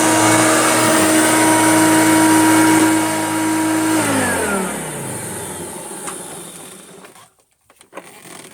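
Hoover Junior upright vacuum cleaner running steadily, then switched off about four seconds in, its motor winding down with a falling pitch until it stops. A few light knocks follow near the end.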